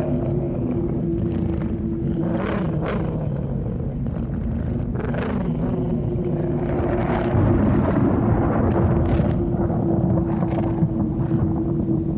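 Eerie ambient drone: a steady low hum over a dense rumble, crossed every second or so by whooshing sweeps.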